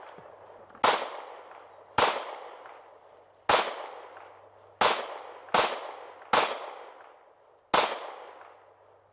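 Seven shots from a Springfield XDM 9 mm semi-automatic pistol, fired at an uneven pace about one to one and a half seconds apart, with a quicker run of three in the middle. Each shot is followed by a long echo that dies away.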